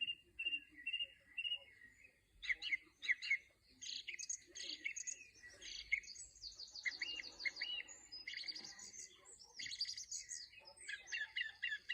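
Songbirds chirping and singing: a few short whistled notes repeated at the start, then a dense, overlapping run of quick chirps and trills.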